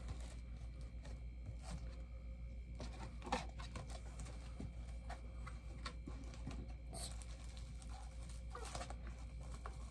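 Cardboard bobblehead box being opened by hand: scattered rustling, scraping and tearing of the packaging, with a few louder handling noises about three, seven and nine seconds in, over a low steady hum.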